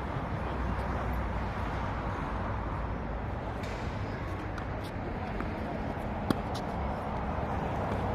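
Steady outdoor background noise with a low hum, and a single sharp knock about six seconds in.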